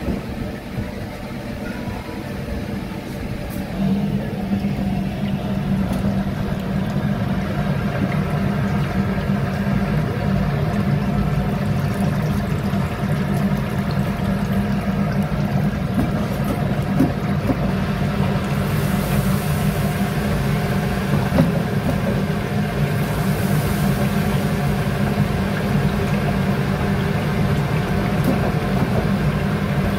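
Chicken deep-frying in a commercial fryer, the oil bubbling, over a steady low machine hum. A couple of brief hissing surges come past the middle.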